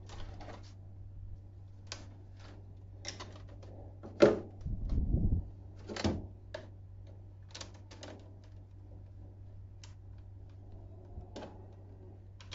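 Scattered plastic clicks and taps from the DX Tridoron toy car being handled. About four seconds in there is a louder knock followed by a brief rumbling scrape, and there is another knock about six seconds in.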